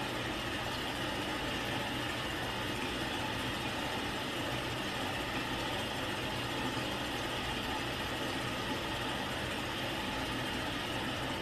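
Steady room hum and hiss, even throughout, with a constant low hum underneath and no distinct events; the soft patting of the towel does not stand out.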